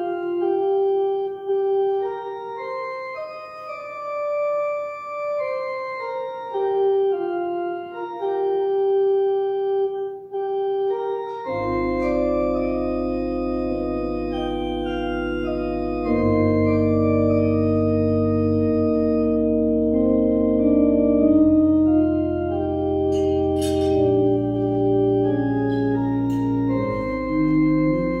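Church organ playing a slow piece. A single melody line of held notes comes first; about eleven seconds in, full held chords with deep bass notes join it.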